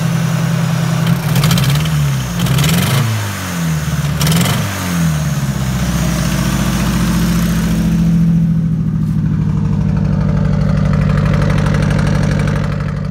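Nissan SR20DET turbo four-cylinder engine running just after a startup, blipped up and down a few times in the first five seconds, then settling to a steady idle. The owner says the engine has a little rod knock.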